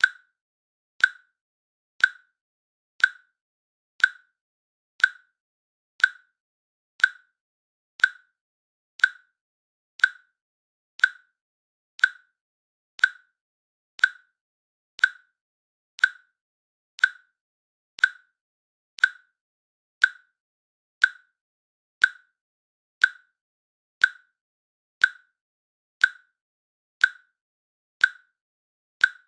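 Countdown timer's click sound, one short, slightly ringing click each second, steady and evenly spaced.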